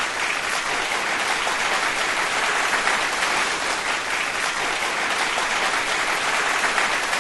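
Audience applauding steadily, many hands clapping densely together.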